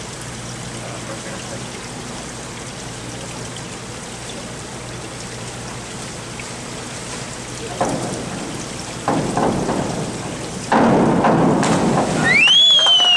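Steady rain-like hiss of the diving pool's surface sprayers. Near the end come a couple of knocks from the springboard and a louder rush of noise as a diver takes off and enters the water, followed by a spectator's high whoop that rises and then falls.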